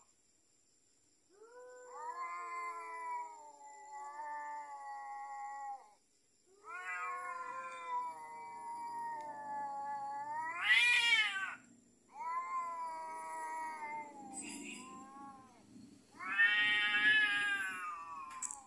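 Two domestic cats caterwauling in a fight standoff: four long, drawn-out yowls, the second rising into a loud screech near the middle.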